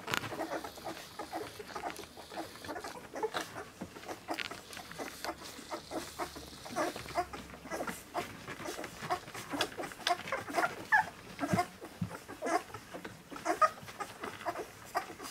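A litter of 17-day-old puppies nursing: rapid wet suckling and smacking clicks, with short squeaks and little grunts from the pups, busiest in the second half.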